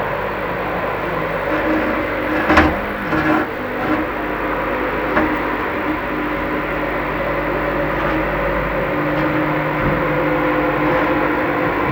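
Steady mechanical hum of construction work from other trades in the house, with a sharp knock about two and a half seconds in and a couple of lighter clatters just after.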